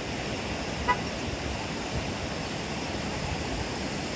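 Steady rushing noise of ocean surf and wind, with a brief sharp click about a second in.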